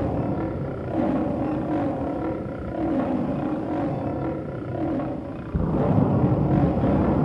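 Monster sound effect: a low growling roar that wavers up and down in pitch. About five and a half seconds in, a louder, deep rumble cuts in suddenly.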